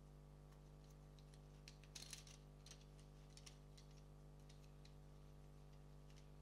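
Faint clicks and rattles of plastic Lego Technic parts being handled and pressed together, with a short cluster of clicks about two seconds in and a few single clicks after, over a low steady electrical hum.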